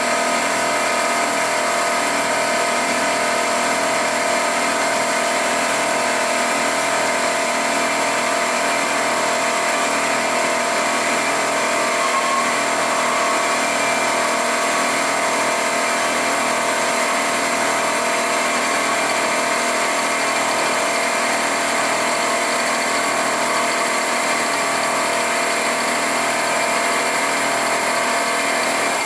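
Milling machine running steadily and cutting a Volkswagen 5-cylinder main bearing cap, with a steady whine over the noise of the cut.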